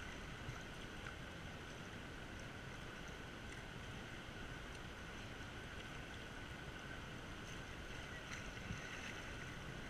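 Steady rush of river current around a whitewater kayak on the move, with a few faint splashes of paddle strokes.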